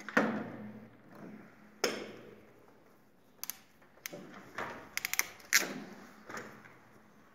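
About seven sharp clicks and knocks at irregular intervals from a hand tool working at the terminal bar inside a metal electrical distribution panel. The loudest come near the start and about five and a half seconds in, with a quick cluster of clicks just before the second.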